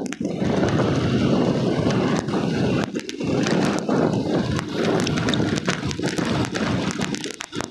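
Wind buffeting the microphone: a steady, loud rumbling noise with many small knocks and clicks.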